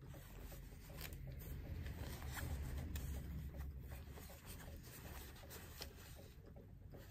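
Soft rustling and rubbing as plush toys and their packaging are handled out of a cardboard box, with small crackles throughout and a low rumble underneath.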